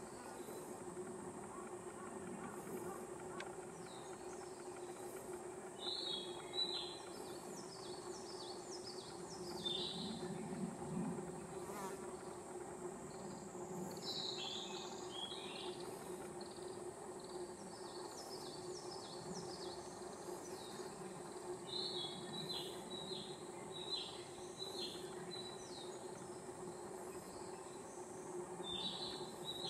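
Insects buzzing in a steady drone, with runs of short high chirping notes coming every few seconds.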